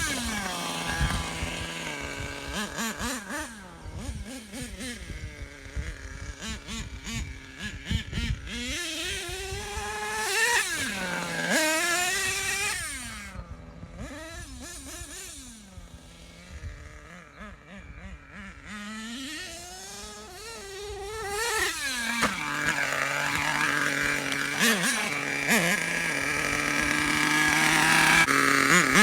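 Small nitro engine of an HPI Savage 3-speed RC monster truck being driven, its pitch climbing and dropping again and again as the throttle is worked, with a run of sharp clicks and knocks in the first few seconds. Near the end it holds a steadier, louder note.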